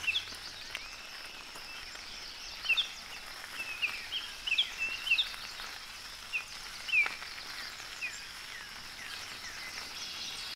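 Outdoor natural ambience: a steady high hiss with short bird chirps scattered through it, busiest from about two and a half to five and a half seconds in, with another near seven seconds.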